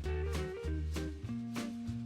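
Background music with a steady beat: an upbeat swing-style track with bass, guitar and drums.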